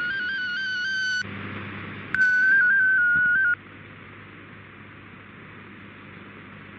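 Shortwave digital-mode audio: two short bursts of a single tone hopping quickly in small steps around 1.5 kHz, the RSID mode-identification signal that tells the decoder a new mode is coming. Then a much fainter, even hiss under radio static as the fast MFSK128 data signal begins.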